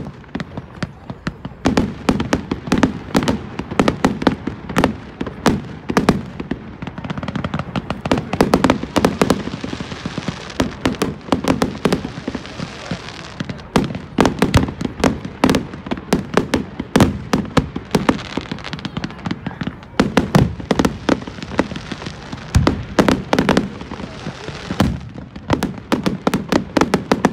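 Fireworks display: a rapid, near-continuous barrage of aerial shell bursts, bangs and pops, several a second, with stretches of dense crackle.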